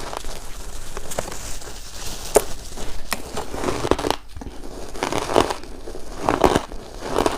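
Shaved ice being bitten and crunched in the mouth, close up: irregular crackling crunches, louder and denser in the second half.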